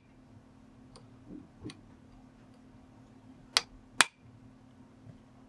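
Light metal taps of a steel punch on a rifle sight base in its dovetail: two faint ticks, then two sharp, louder taps about half a second apart around three and a half seconds in. The taps bend the edges of tin-foil shims in to tighten a loose dovetail joint.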